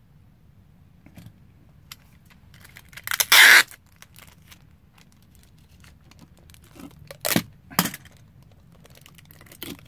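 Clear packing tape pulled off a handheld tape dispenser in one loud, rasping pull about three seconds in, followed later by two short sharp rips close together.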